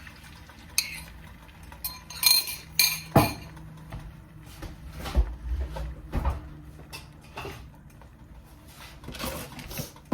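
Kitchen dishes and utensils clinking and knocking: a quick run of sharp clinks about two to three seconds in, the loudest knock just after, a couple of duller thuds a few seconds later, then scattered lighter taps.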